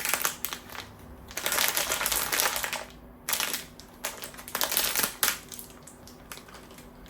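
A blind-box package being torn open and handled: cardboard and wrapper rustling, crinkling and tearing in several bursts, with small clicks and knocks between them.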